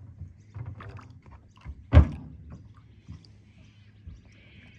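A single loud thump about two seconds in, with a few lighter knocks around it: someone stepping and moving about on the deck of a small aluminium boat.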